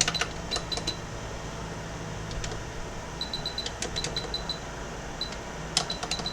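Short high electronic beeps in quick runs, up to four or five in a row, with light clicks between them: a hot-air rework station's buttons being pressed to set it. A steady low hum runs underneath.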